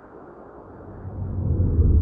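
A swelling whooshing rumble, a logo-transition sound effect, that grows steadily louder and deeper through the second half and peaks at the end.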